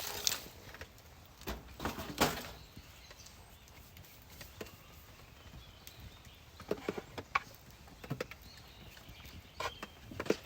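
Scattered light knocks and clatters, several in quick clusters, over a faint steady background.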